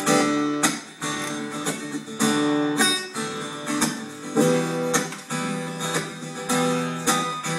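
Acoustic guitar strummed in a steady rhythm, chords struck about twice a second: an instrumental break between sung verses.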